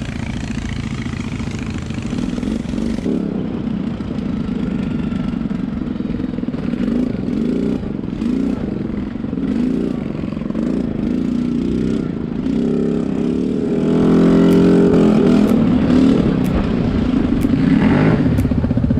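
Quad bike (ATV) engine running on a dirt trail, its pitch rising and falling about once a second as the throttle is worked, then running louder and steadier for the last few seconds.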